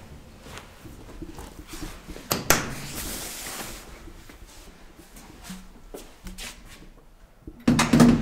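Heavy metal swing doors of an old DEVE freight elevator: a bang as a door is pushed open about two and a half seconds in, small clicks, then a loud clunk with a short low ring near the end as the doors swing shut.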